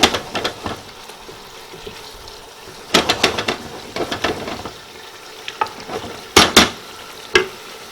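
Chicken and masala frying in a pot, sizzling steadily, as a spoon stirs in the salt, scraping and knocking against the pot in short clusters about three seconds in and again near the end.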